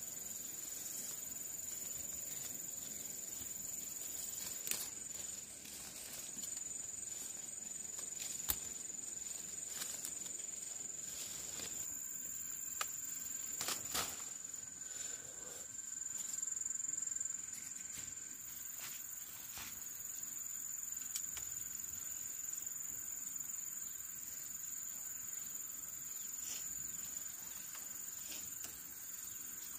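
Insects calling in a steady, high-pitched drone, with a few scattered light clicks and knocks over it.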